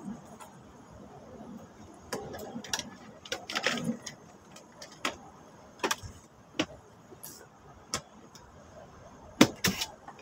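Irregular sharp clicks and light metallic taps of a camera knocking against a chain-link wire fence, about a dozen scattered hits, the loudest two close together near the end.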